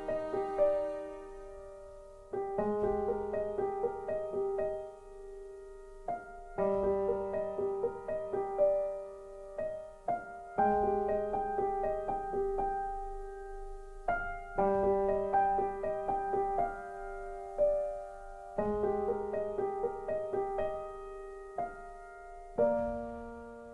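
Background music: slow, gentle piano, notes struck in short phrases about every four seconds and left to ring and fade.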